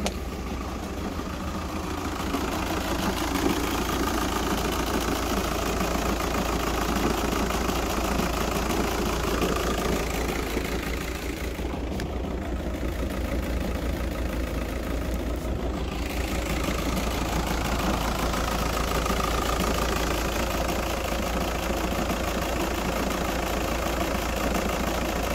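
VW Golf 5's 2.0 TDI BKD four-cylinder diesel engine idling steadily.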